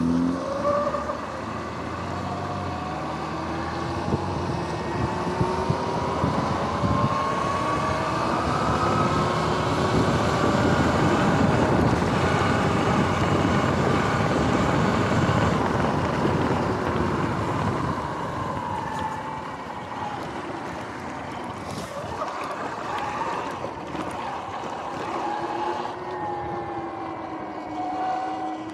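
Electric dirt bike's motor whining, its pitch rising and falling with speed, over wind rushing across the microphone. The wind noise grows loudest in the middle as the bike goes fastest, then eases toward the end.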